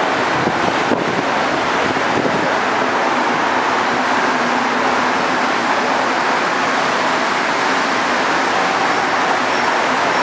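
Rubber-tired Montreal metro train in the station, a steady loud rumble with a faint low hum beneath it.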